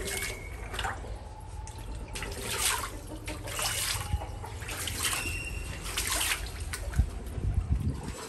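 Water splashing and trickling in a shallow tiled pond, in short swishes about once a second, over a low steady rumble.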